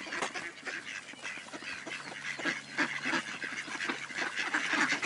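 A flock of mallard ducks quacking and chattering, with many short calls overlapping.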